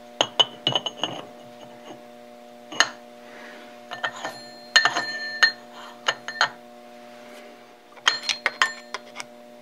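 Steel index plate of a dividing head being fitted onto its shaft and handled against the cast-iron body: clusters of metallic clinks and taps, some ringing briefly, over a steady low hum.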